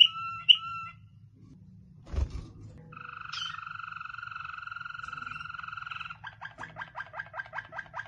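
Waterslager canary singing. It starts with a few short whistled notes that flick upward, then comes a thump about two seconds in. After that it holds one long note with a fast flutter for about three seconds, and from about six seconds in it switches to a rapid roll of repeated notes, about eight a second.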